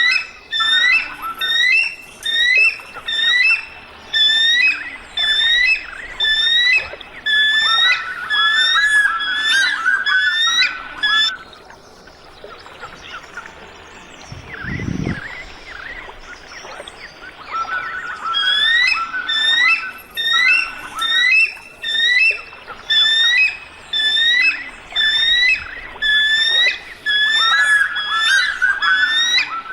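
An eagle calling: a series of high, piping notes, each rising then falling, repeated about twice a second. The calls come in two long runs with a pause of several seconds in the middle.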